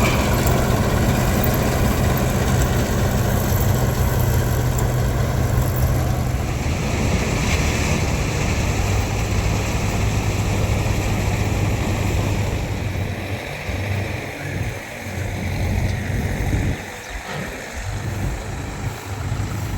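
Heavy farm-machine diesel engine running steadily. Its pitch steps down a little about six and a half seconds in, and in the last several seconds its level wavers and dips.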